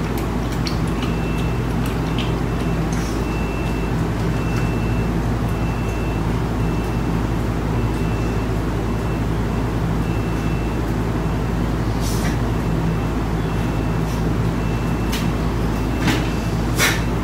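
A steady low hum and rushing background noise, with a faint high tone pulsing on and off and a few light clicks near the end.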